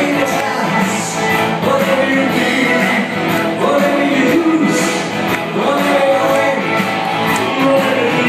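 Loud music with a singing voice, a steady song with a moving melody.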